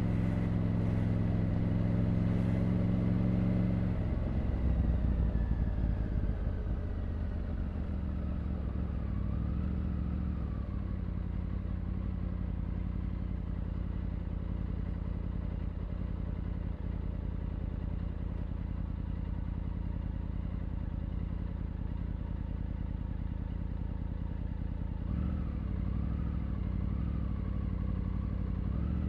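Triumph Tiger 900 three-cylinder engine and exhaust on the move, holding a steady pitch at first. About four seconds in the note changes and swells briefly, then it settles into lower, steady running, and it picks up again near the end.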